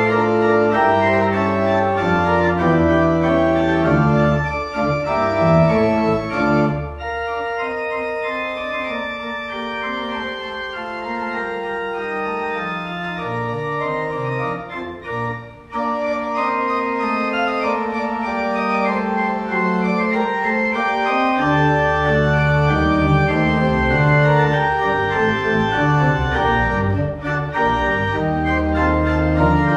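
Pipe organ playing a slow piece in sustained chords. The low pedal notes drop out about seven seconds in and come back about two-thirds of the way through.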